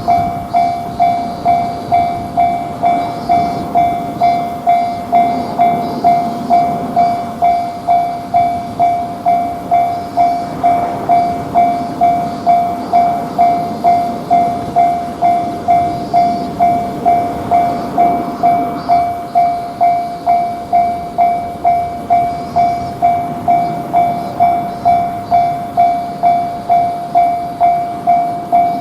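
Japanese railway level-crossing warning bell ringing its 'kan-kan' tone in a steady, even rhythm of about two strikes a second, over the rumble of a train passing through the crossing.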